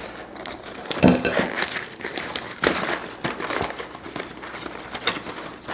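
Big pot of water at a rolling boil, bubbling and crackling irregularly, with a brief clink about a second in.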